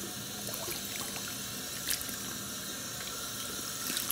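Handheld shower spray at a salon shampoo basin running water through a client's hair, a steady hiss of water splashing into the basin, with a light click about two seconds in.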